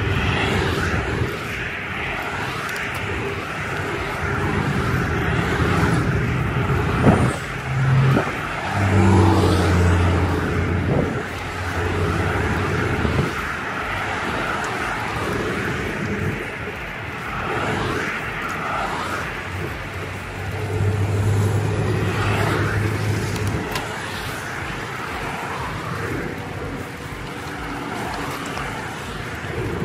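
Road traffic on a multi-lane road alongside: a steady wash of tyre and engine noise that swells and eases as cars pass.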